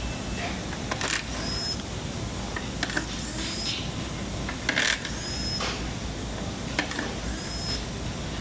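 Irregular clicks and knocks of screws and hard plastic parts being handled as the screws come out of a HUINA 1561 RC fire truck's plastic chassis, the loudest about five seconds in. Several brief, faint high-pitched whines recur about a second apart.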